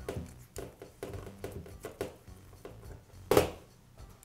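Light metal clicks and taps as a wrench works the nut at the end of a Makita grinder's armature shaft, then a louder metallic clatter about three seconds in as the wrench is set down on the metal bench.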